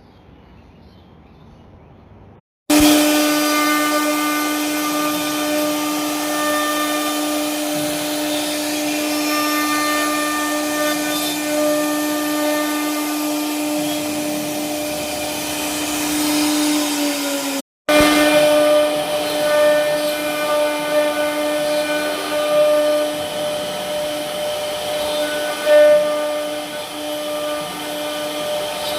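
CNC router spindle running and cutting, a loud, steady whine that starts about three seconds in. It breaks off for an instant about two-thirds of the way through, then carries on with small rises and falls in level.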